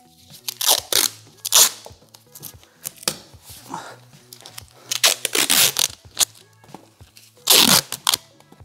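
Paper masking tape pulled off its roll and torn, in several loud rips, over quiet background music.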